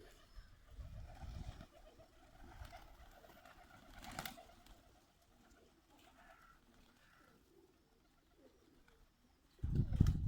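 Birmingham roller pigeons cooing softly, with a sharp click about four seconds in and a louder burst of low sound near the end.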